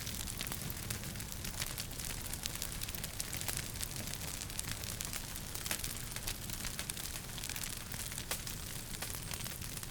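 Wood fire crackling in a fireplace: frequent sharp pops and snaps over a steady hiss and low rumble.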